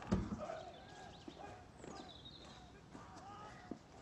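A heavy wooden thud right at the start as the wicket door in a large wooden gate swings open, then a few light footsteps on stone over faint birdsong.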